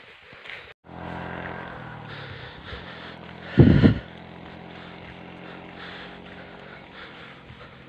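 Motorcycle engine running steadily as the bike rides along, starting about a second in. A brief loud burst of noise, the loudest sound here, comes about three and a half seconds in.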